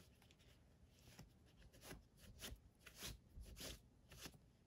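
Faint rustling and rubbing of fabric being wrapped around a piping-cord basket handle, in a handful of short soft strokes.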